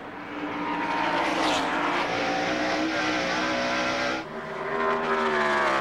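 NASCAR Winston Cup stock cars' V8 engines running flat out on track, with the engine pitch sliding slowly up and down. About four seconds in the sound drops off suddenly, then builds again.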